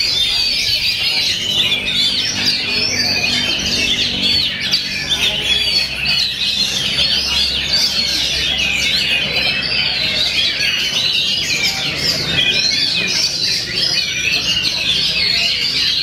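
Oriental magpie-robins singing: a dense, unbroken tangle of fast chirps, whistles and trills from several birds at once.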